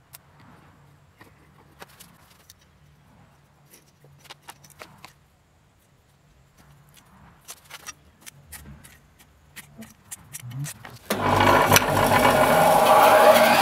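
Small taps and handling noises as a steel ruler is laid on a wooden spoon blank, then about eleven seconds in a bandsaw is switched on and its motor starts up with a whine rising in pitch.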